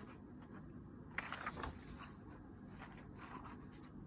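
Paperback picture book being opened: a faint rustle and scrape of the glossy cover and paper pages as they are bent back and turned, a little louder for a moment just over a second in.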